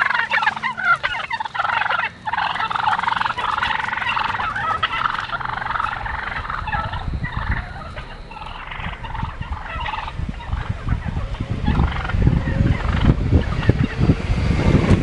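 An animal giving rapid, rattling, gobble-like calls over and over, with low rumbling thumps in the last few seconds.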